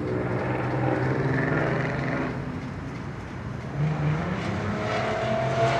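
A nearby car engine running steadily, its pitch stepping up about four seconds in as it is given some gas.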